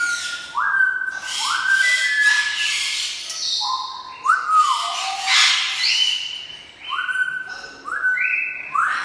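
African grey parrot whistling a string of clear notes, about a dozen, each sliding up quickly at its start and then held for a moment, over a background hiss.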